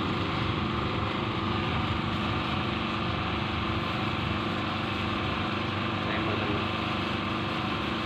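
Polytron twin-tub washing machine's wash motor running steadily under power, turning in one direction only: it fails to reverse.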